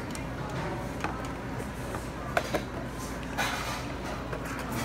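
A few light clicks and a short scraping rustle as a thermostat and its cardboard box are handled on a cutting board, over a steady low background hum.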